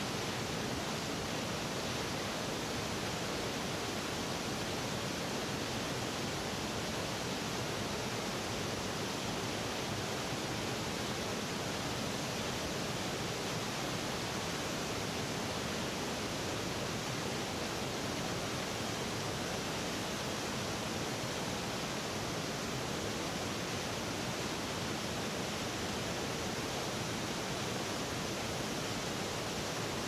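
Steady rushing of a waterfall pouring into a pool, an even hiss that holds without change.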